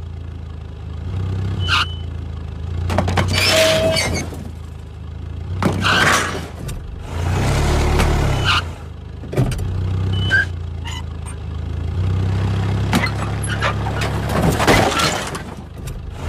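Semi truck's diesel engine running low and steady while the truck maneuvers slowly, with several spells of hissing and a few sharp clicks over it.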